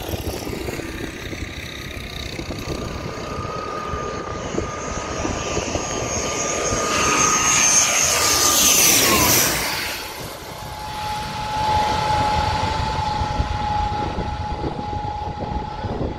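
ATR 72 twin turboprop airliner flying low overhead on final approach. Its propeller drone holds a steady high pitch while it grows louder, peaks about 8 to 9 seconds in, and drops sharply in pitch as the aircraft passes over. It then carries on at a lower steady pitch as the plane moves away down the runway after touchdown.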